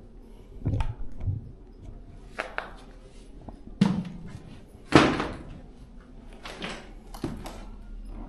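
Irregular knocks and thumps, the loudest a sharp bang about five seconds in, with a duller thud just before it.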